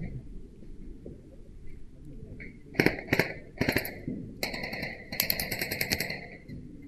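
Airsoft rifles firing about five short full-auto bursts, each a fast rattle of shots over a high-pitched whine, the longest lasting nearly a second near the end.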